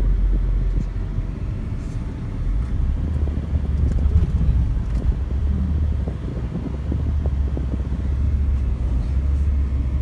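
Steady low rumble of a car driving, with engine and tyre noise heard from inside the cabin.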